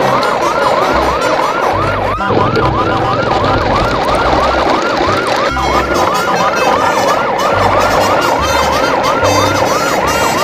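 A siren sounding a fast, repeating yelp, about three rising-and-falling sweeps a second, over a low pulsing bass.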